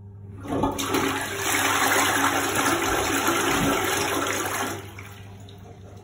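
Ideal Standard Alto back-to-wall toilet flushed from its Grohe push button: a loud rush of water that starts about half a second in, runs for about four seconds and falls away near the end as the bowl clears.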